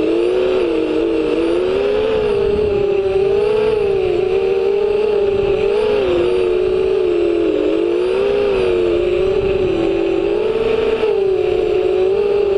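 FPV quadcopter's motors and propellers whining, heard from the onboard camera, the pitch rising and falling with the throttle, over low wind rumble.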